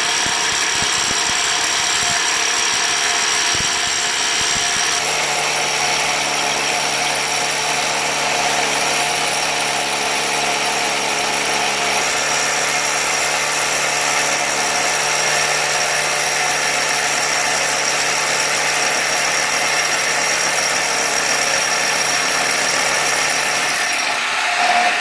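Electric drill running continuously as it bores a hole through the house wall, drilled at a slight upward angle. Its tone shifts about five seconds in, and it stops near the end.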